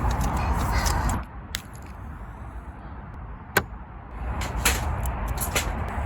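Kovea Cube portable gas heater's burner hissing and rumbling, then shut off about a second in, the noise cutting out abruptly; a few sharp clicks and knocks follow as it is handled.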